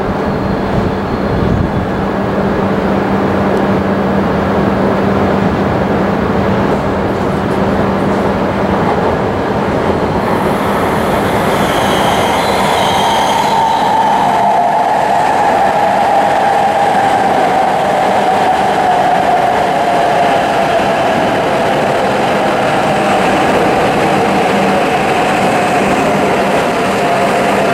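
H5-series Shinkansen arriving at a station and slowing to a stop: a steady rush of the train along the platform, with a motor whine that comes in about halfway through and falls slowly in pitch as the train brakes.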